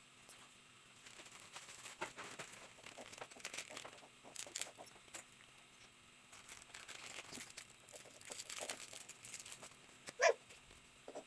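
Plastic packaging crinkling and rustling in irregular bursts as a parcel is handled and torn open, with one short, loud cry about ten seconds in.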